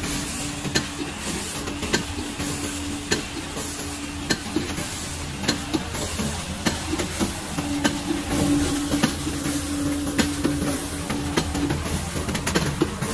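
Semi-automatic aluminium foil container press running steadily, with a sharp click or knock roughly every second and a quarter as it stamps trays. Under it is a constant machine hum, and a steady low tone that stops and starts.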